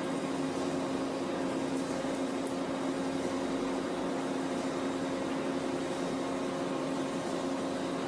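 A machine running with a steady, even hum made of several fixed tones, with no change in speed.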